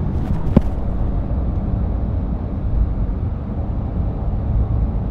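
Steady low road and engine rumble heard inside a moving car's cabin, with one sharp click about half a second in.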